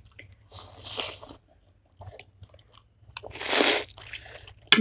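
Close-miked eating of buff keema noodles: two loud, drawn-out bursts of mouth noise of about a second each, the first near the start and the second past the middle, with faint chewing clicks between.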